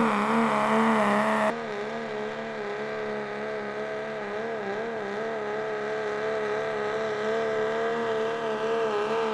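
Turbocharged hot rod diesel 4x4 pulling truck running at full throttle under load as it pulls the sled. The engine's pitch wavers slightly over a thin, high turbo whistle, and the sound drops suddenly in loudness about a second and a half in.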